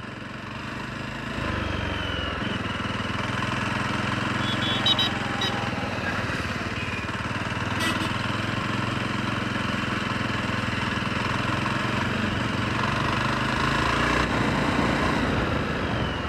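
Jawa Perak's single-cylinder engine running steadily as the motorcycle is ridden at town speed, with wind and road noise.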